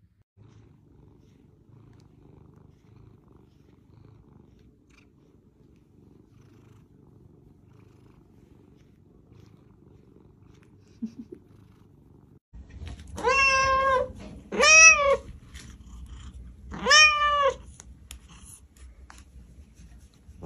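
Domestic cats purring while being stroked: first a soft, steady purr, then a louder purr that takes over about halfway through. Over the louder purr a cat gives three meows, the first two close together.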